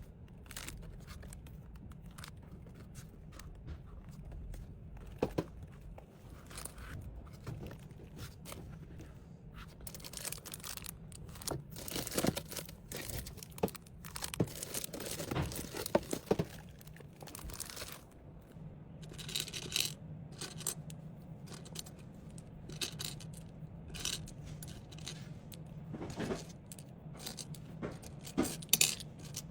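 Hands handling and packing small items in plastic packaging: irregular crinkling, tearing and light scrapes and knocks, over a low steady hum.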